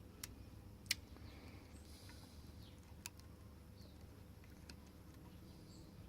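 Lock picks working the pins inside a Lockwood 245 padlock: a few sharp, faint clicks, the loudest about a second in, over a low steady hum.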